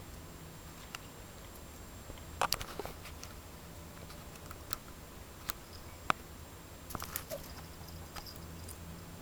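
Scattered light clicks and taps, a few seconds apart, the loudest a quick double tap about two and a half seconds in, over a low steady hum.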